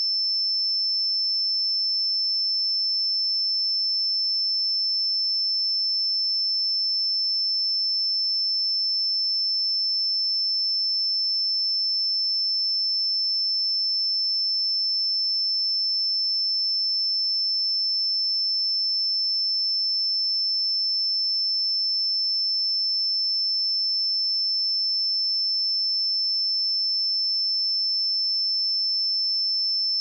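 A pure 5303 Hz sine-wave test tone: one steady, high-pitched whistle held at a constant level, with no other sound.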